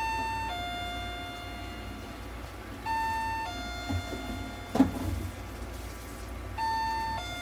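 Electronic two-tone chime, a short higher note dropping to a longer fading lower note, sounding three times about every three and a half seconds over a steady low hum. A single sharp click about two thirds of the way through is the loudest moment.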